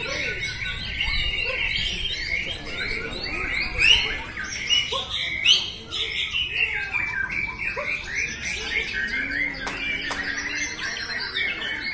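Several caged white-rumped shamas (murai batu) singing at once, a dense stream of quick overlapping whistles and chirps with a few louder notes about four and five and a half seconds in.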